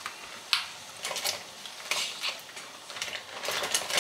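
Kitchen clatter as pasta is added to a pot of boiling water: several short clinks and scrapes of pot and utensils, irregularly spaced.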